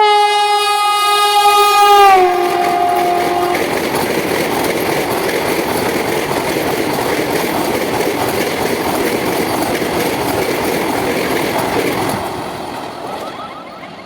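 Vande Bharat Express train set passing at speed. Its horn blows a long steady blast whose pitch drops about two seconds in as the train goes by, then stops. After that comes the loud rush and wheel noise of the coaches, fading near the end.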